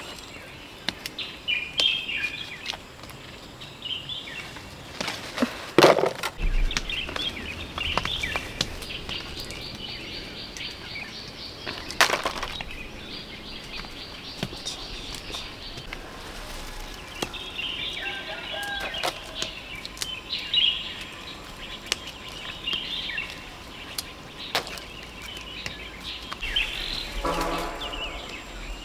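Outdoor forest ambience: small birds chirping on and off, with scattered sharp clicks and knocks from handling and movement through the undergrowth.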